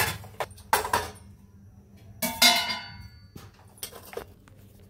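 Stainless-steel kitchenware clattering: a few light knocks, then a louder metal clang about two and a half seconds in that rings briefly before dying away, followed by a few faint clicks.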